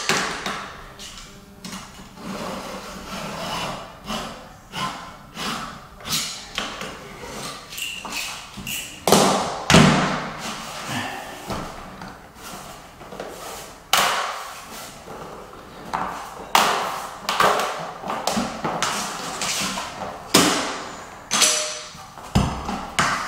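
Glue-down luxury vinyl plank being cut with a utility knife along a straight edge and handled on the floor. It comes as a run of short scrapes, taps and thuds, the loudest thud about ten seconds in.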